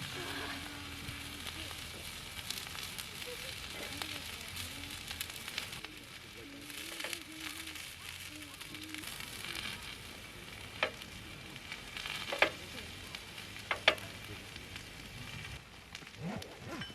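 Food sizzling in a pan over the heat, a steady crackle, with three sharp clicks in the second half.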